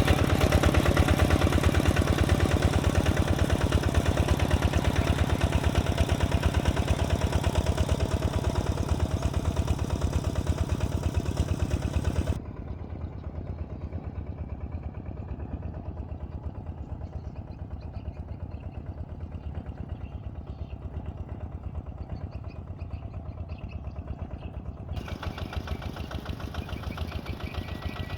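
Heavy machine's diesel engine running steadily with a fast, even pulse. It drops suddenly quieter and duller about halfway through, then brightens again near the end.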